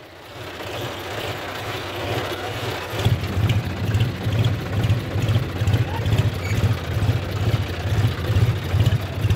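John Deere 5050D tractor's three-cylinder diesel engine running, heard from the driver's seat as a steady, evenly pulsing low rumble that sets in about three seconds in, with the tractor moving in first gear, low range. Before that, a fainter engine sound.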